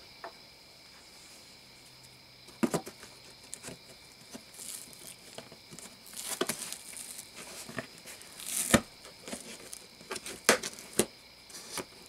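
Metal box staples being pried out of a cardboard carton with pliers: irregular sharp clicks and snaps of metal on metal, with scraping and tearing of the cardboard. The loudest snap comes about three-quarters of the way through.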